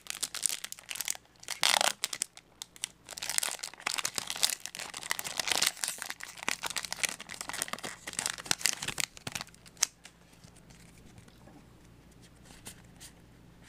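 Foil Yu-Gi-Oh! booster pack wrapper crinkling and being torn open by hand, a run of rustles and sharp rips that stops about ten seconds in.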